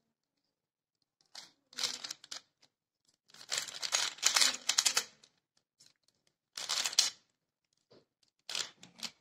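A plastic Pyraminx puzzle being turned fast in a speed solve: its pieces click and rattle in bursts of rapid turns, the longest about two seconds, separated by short pauses.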